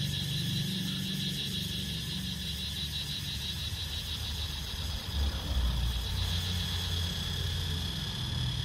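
Outdoor ambience: a steady, high insect trill, cricket-like, with a low engine-like rumble underneath.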